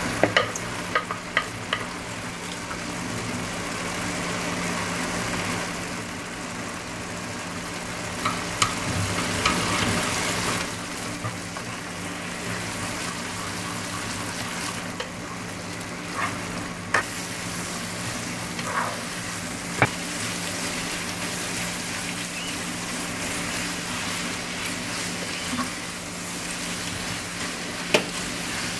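Glass noodles (dangmyeon) sizzling in sauce in a frying pan while chives are tossed in and stirred through with chopsticks. A few sharp clicks of the chopsticks against the pan stand out over the steady sizzle.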